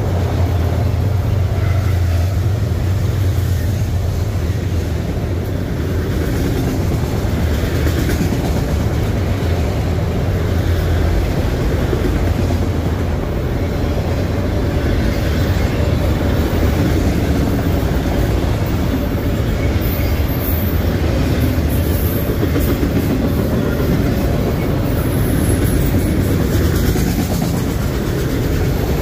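Loaded autorack freight cars of a BNSF train rolling past on the rails, a steady rumble of wheels on track. Faint high squeaks come in about twenty seconds in.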